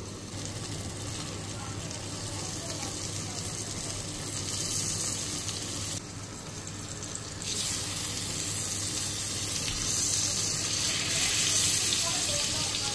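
Steaks sizzling in foaming melted butter in a hot pan, a steady hiss that gets louder from about seven and a half seconds in.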